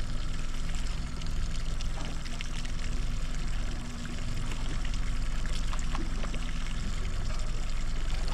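Water sloshing and trickling along the hull of a slow-moving boat, over the steady low hum of its motor at trolling speed.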